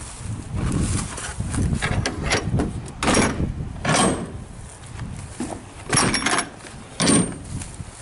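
Metal bar latch and door of an enclosed cargo trailer's side door being worked by hand: a series of sharp metallic clanks and clunks, the main ones about three, four, six and seven seconds in, over a low rumble at the start.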